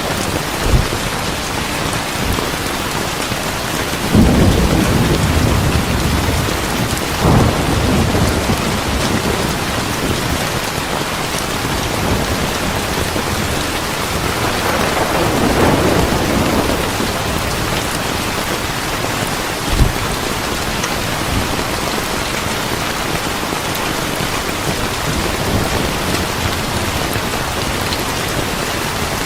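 Steady, heavy rain falling, with thunder rolling three times (the loudest about 4 seconds in, then about 7 and 15 seconds in) and a short low thump near 20 seconds.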